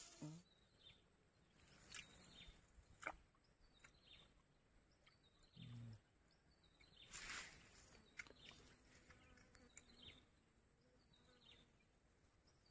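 Near silence: faint outdoor ambience with scattered short, faint chirps and a few soft rustles and clicks.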